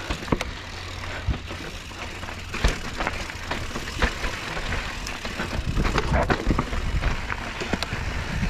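Mountain bike rolling over a rough, rocky trail: a steady low rumble under frequent irregular clicks, knocks and rattles from the tyres and frame, busier in the second half.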